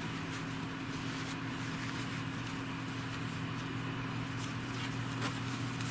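Steady low electrical hum, with faint soft rustles of cotton yarn being handled and pulled from a skein.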